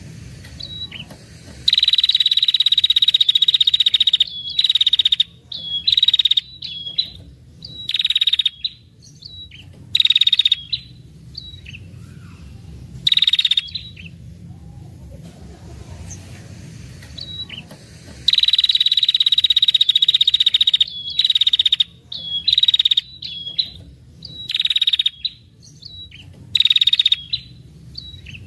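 Female red-headed prenjak, a tailorbird, giving long buzzy trills, each a couple of seconds long, twice, with many short trilled bursts between them. This is the female's long 'ngetir' call, played to lure males.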